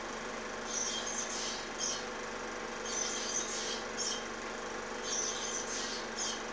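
Osprey calls: short, high-pitched chirping phrases, each a few quick notes, repeating about every two seconds over a steady low hum.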